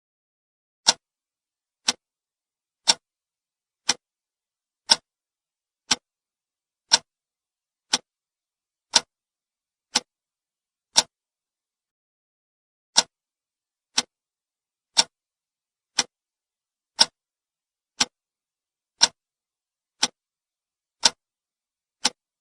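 Conventional clock ticking about once a second, each tick a short, sharp click with silence between. One tick is skipped about halfway through.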